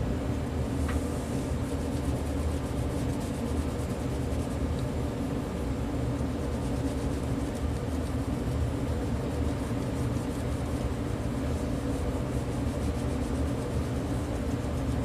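Steady low mechanical hum, even throughout, with a single faint tick about a second in.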